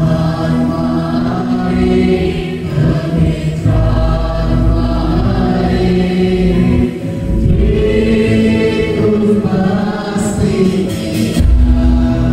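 Live worship band playing a Hindi Christian worship song: a man and a woman singing into microphones over bass guitar and drum kit, with a few cymbal hits near the end.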